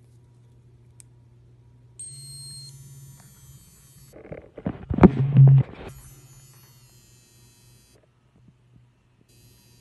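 LED neck massager's vibration motor humming steadily, with a thin high electronic whine that switches on and off a few times. About four seconds in, a loud burst of rubbing and knocks as the phone is handled.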